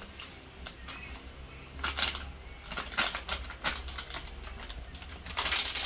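Scattered light clicks and taps of a can and blender jar being handled, then near the end a louder, steady rushing splash as the last of the milk is poured into the blender jar.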